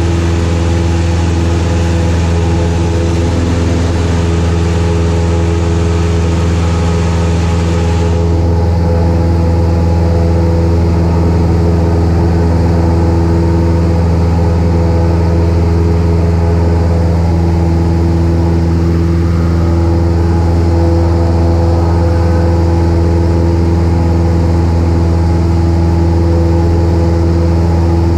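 Cessna 172's piston engine and propeller running steadily at climb power, a steady drone heard from inside the cabin. The higher hiss above the drone drops away suddenly about eight seconds in.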